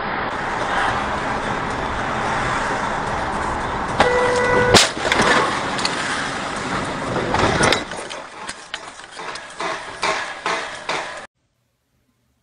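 Road and engine noise inside a moving car. About four seconds in, a car horn sounds for under a second and is cut off by a sharp bang, the loudest sound. A second hit comes a few seconds later, then scattered knocks and rattles before the sound cuts out.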